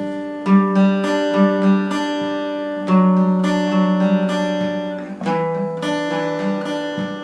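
Background music: acoustic guitar strummed and picked, chords changing every second or so.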